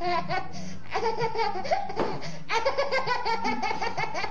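A toddler laughing hard: high-pitched laughter in quick runs of short pulses, with brief breaks between the runs.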